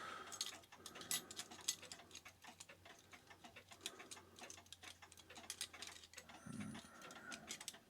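Faint, irregular small metallic clicks and scrapes of a spring clamp being worked onto a clock movement's mainspring to hold it before the power is let down.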